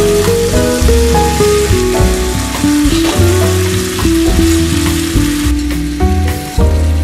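Tofu, black beans and freshly poured sauce sizzling in a miniature cast iron skillet while a tiny metal spatula stirs them, with background music playing a melody of held notes throughout.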